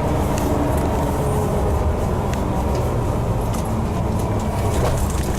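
Tour bus in motion, heard from inside: a steady low engine and road rumble with light rattles.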